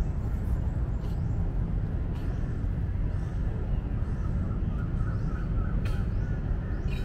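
Steady low rumble of outdoor background noise, with faint bird calls and a few small clicks over it.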